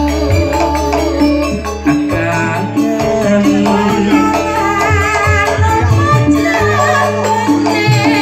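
Live band music with a woman singing into a microphone, her voice wavering with vibrato over held bass notes and rhythmic percussion.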